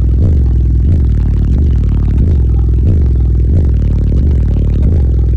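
Car subwoofers playing bass-heavy music very loud, the deep bass pulsing in a steady fast beat, with something in the car rattling along.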